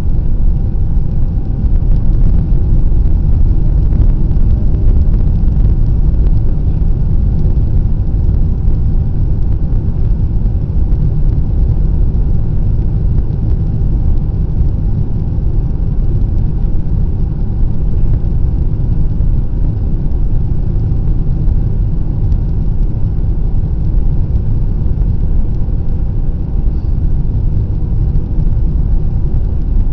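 Steady low rumble of an airliner's jet engines and rushing air heard inside the passenger cabin, with a faint steady hum.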